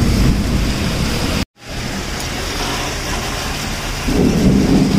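Heavy monsoon rain falling, with water running and splashing where it has flooded the floor. A low rumble sits under the rain at first; the sound drops out for an instant at a cut about a second and a half in, then the rain resumes steadily, with the low rumble swelling again near the end.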